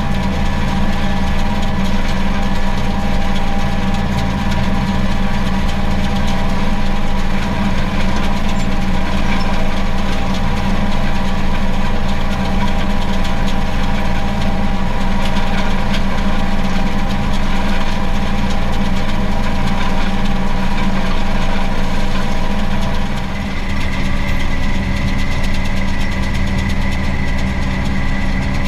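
Case IH 4240 Pro tractor running steadily under load while it drives a round baler, heard from inside the cab as a constant engine drone with a mechanical whine over it. About three-quarters of the way through, the level dips briefly and a higher, steady whine joins in.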